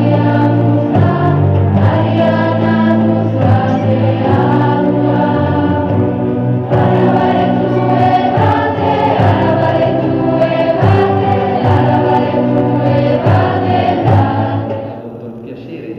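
A school choir singing with a string orchestra and keyboard accompaniment, with held low string notes under the voices; the music drops away near the end.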